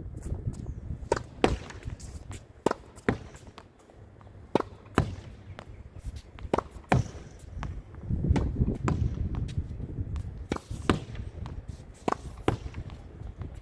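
Tennis ball struck hard by a racquet and smacking off a practice wall, in quick pairs of sharp hits about every two seconds, with wind rumbling on the microphone.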